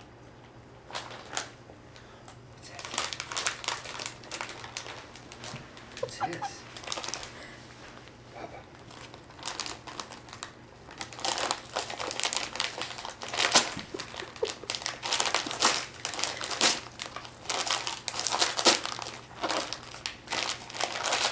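Gift wrapping paper being crinkled and rustled by hand as a present is unwrapped, in irregular crackling handfuls that get busier about halfway through.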